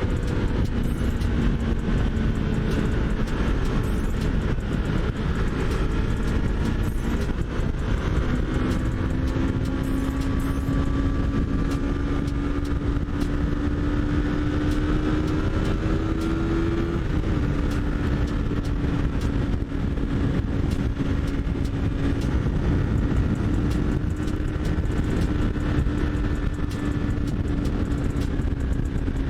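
Yamaha MT-03's parallel-twin engine running steadily under way, heard over heavy wind and road noise. Its note climbs slowly, dips once about two-thirds of the way through, then holds level.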